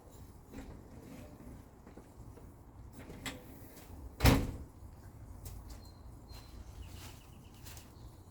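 A single loud knock or thump about four seconds in, with a fainter click a second before it, over a quiet low background.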